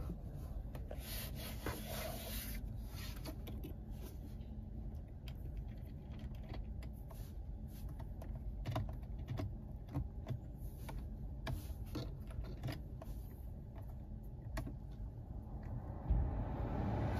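Fingers tapping the BYD Dolphin's centre touchscreen and pressing the push buttons on its centre-console switch bank, giving scattered small clicks over a low steady background rumble. A louder rubbing noise comes near the end.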